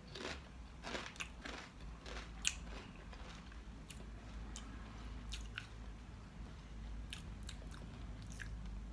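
A person biting into and chewing crisp potato sticks. Sharp crunches come thick and fast for the first few seconds, then space out into scattered crunches as the chewing goes on.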